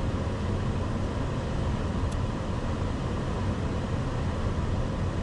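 Steady flight-deck noise of an Airbus A380 in flight: the rush of airflow over the nose and the air-conditioning hum, at an even level, with one faint tick about two seconds in.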